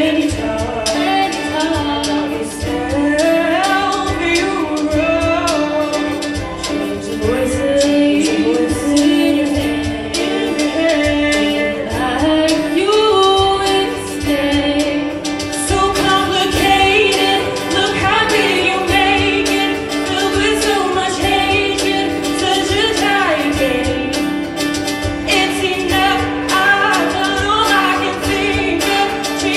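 Girls' show choir singing a pop ballad, with female voices on microphones carrying the melody over a held note and live band accompaniment with a steady beat.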